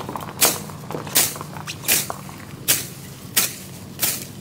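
Hand sickle slicing through tall grass and weeds in a steady rhythm of short, sharp swishes, about six strokes, one every 0.7 seconds or so.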